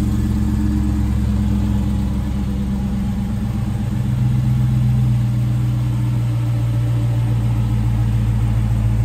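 Dodge Challenger's Hemi V8 idling steadily, the engine still cold from a cold start. Its idle note shifts slightly about four seconds in.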